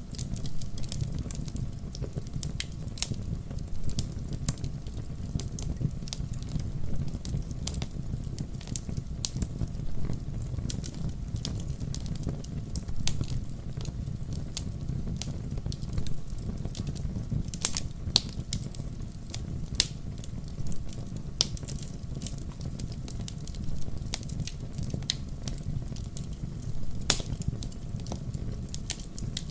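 Wood fire burning in a fireplace: a steady low rumble of flame with irregular crackles and snaps from the burning wood, a few sharper pops standing out.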